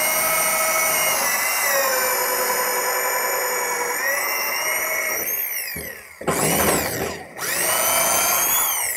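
DeWalt right-angle drill running at its high 1200 RPM setting, boring an auger bit through a wooden stud plate: a steady motor whine that sags as the bit bites. It winds down about six seconds in, then is triggered twice more in short bursts before stopping near the end.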